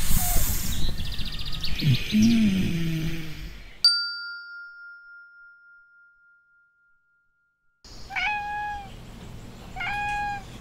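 A noisy opening with low swooping tones, then a sharp bell-like ding about four seconds in whose tone rings on and fades. Near the end a kitten meows twice, high and short, over a low hum.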